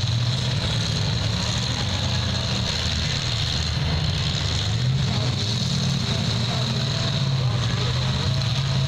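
Demolition derby car engines running and revving together in a steady low rumble that swells and eases, with no sharp crash standing out.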